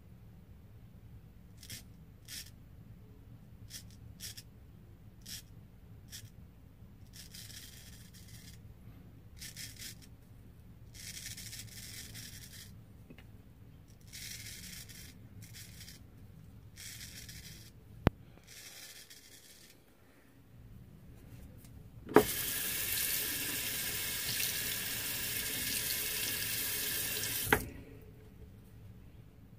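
An Art of Shaving straight razor scraping through lathered whiskers in a series of short strokes, then longer ones. After a sharp click, a tap runs into a sink for about five seconds, with a knock as it is turned on and off.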